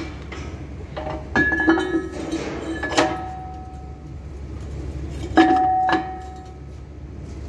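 Steel parts of a VL10 electric locomotive's brake rigging being knocked and handled: sharp metallic clinks in a few clusters, around one and a half, three and five and a half seconds in, each ringing on briefly. A steady low hum lies underneath.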